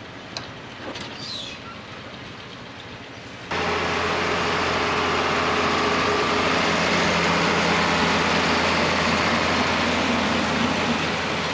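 John Deere 4640 tractor's six-cylinder diesel engine running steadily while pulling a round baler. It comes in suddenly about three and a half seconds in, after a much fainter first stretch.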